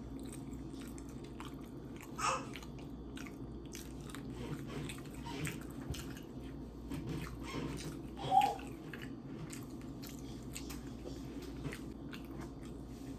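A person chewing and biting food close to the microphone, with many short, wet mouth clicks.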